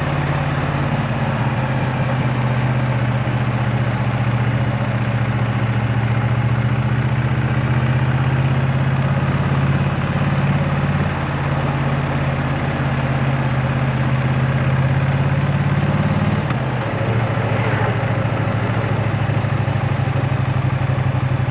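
2024 Triumph Bonneville T100's 900 cc parallel-twin engine running steadily at low revs, close to idle.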